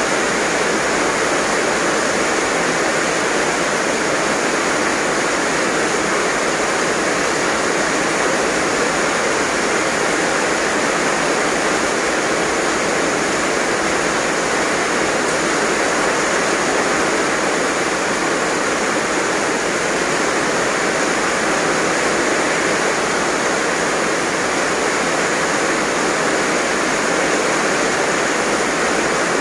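Heavy rain pouring down as a steady, unbroken hiss.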